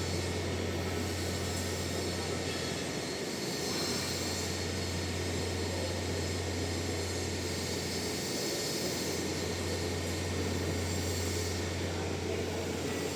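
Metal lathe running steadily: a constant low motor hum with an even mechanical whir over it.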